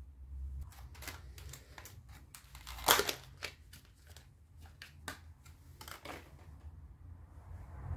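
Clear plastic case of a new LPG injector being handled and opened: a string of light plastic clicks and rattles, the loudest about three seconds in.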